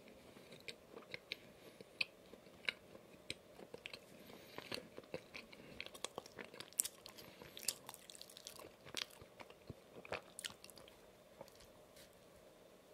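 Close-miked chewing of a soft donut topped with Oreo cookie crumbs and cream: many small wet mouth clicks and light crunches, busiest in the middle and thinning out near the end.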